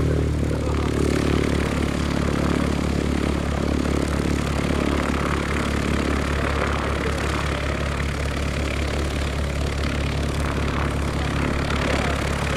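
A piston engine running steadily at idle, low and even, with no change in speed.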